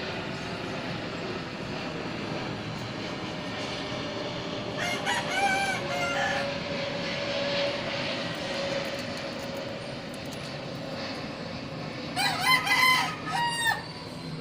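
A rooster crowing twice, once about five seconds in and again near the end, each crow a long wavering call, over steady background noise.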